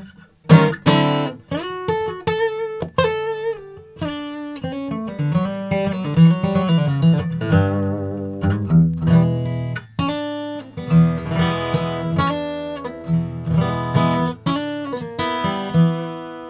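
Martin D-18-style dreadnought acoustic guitar, Adirondack spruce top with mahogany back and sides, played fingerstyle. A picked melody runs over alternating bass notes, with occasional full strummed chords.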